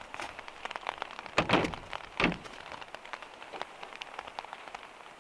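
Footsteps crunching on icy snow, then two heavy thunks about one and a half and two seconds in, followed by freezing rain pattering on a VW Kombi van's roof and windows.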